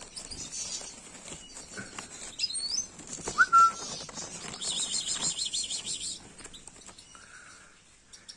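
European goldfinches calling in an aviary: a curling chirp, a short loud whistled note, then a fast high twittering trill lasting about a second and a half. Light rustles and clicks come from artificial leaves being pushed aside against the wire cage.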